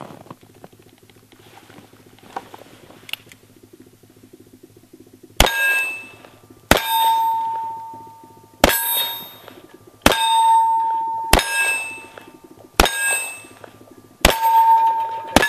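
Revolver shots, eight of them about a second and a half apart starting about five seconds in, each followed by a steel plate target ringing as it is hit. The revolvers are fired gunfighter style, one in each hand.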